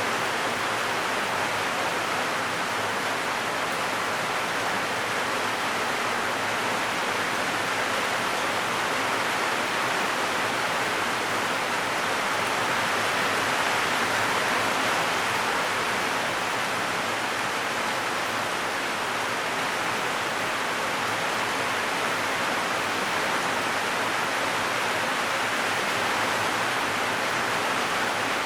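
Heavy rain drumming on a zinc roof, a dense, steady hiss with no let-up.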